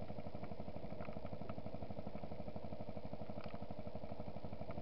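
Yamaha WR125 motorcycle's single-cylinder engine idling steadily with an even, rapid pulse.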